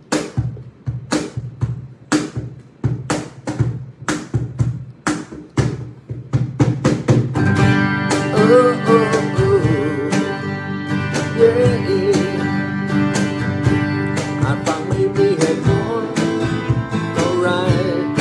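Gibson acoustic guitar playing a song intro: sharp strummed chord hits about twice a second, then full continuous strumming from about seven seconds in, with a voice carrying a wordless melody over it.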